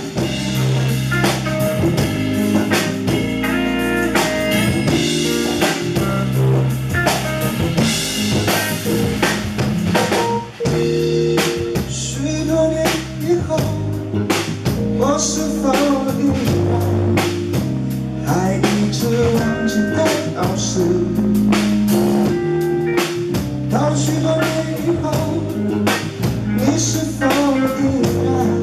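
Rock band playing live: electric guitar, electric bass and drum kit play a steady groove, and a male lead vocal comes in about halfway through and sings over the band.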